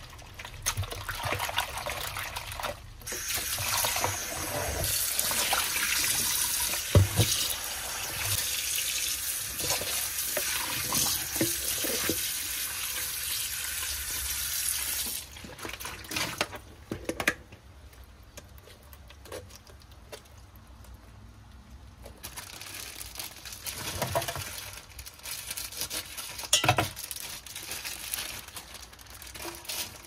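Kitchen tap running into a sink while seafood is rinsed by hand in a colander, with water splashing. The running water stops about halfway through, leaving quieter handling sounds and a few light knocks.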